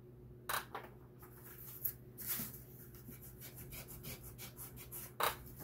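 Pencil drawing on paper: a run of short, faint scratching strokes as lines are sketched.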